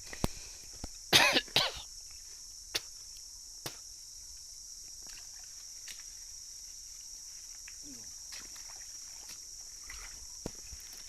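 Steady high-pitched drone of forest insects. A loud group of three short, harsh bursts comes a little over a second in, and a few faint clicks or snaps follow.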